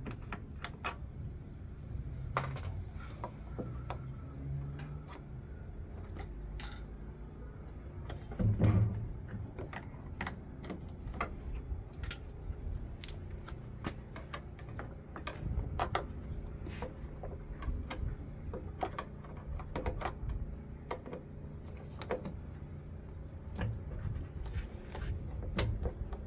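Irregular metallic clicks and clinks of hand tools on the metal parts of a washing machine being taken apart, with one louder thump about a third of the way in.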